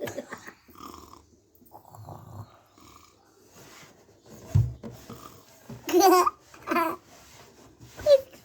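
A person laughing in two short high-pitched bursts about six seconds in, with a brief low thump just before and faint scattered sounds earlier.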